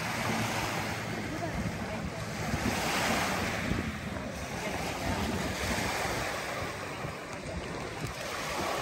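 Small lake waves lapping and washing onto a sandy beach, the wash swelling and easing every few seconds, with wind buffeting the microphone.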